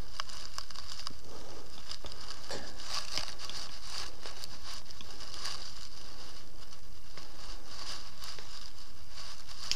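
Faint scattered clicks of a wrench on the crankshaft bolt as a motorcycle engine is turned over slowly by hand to find top dead centre, over a steady hiss.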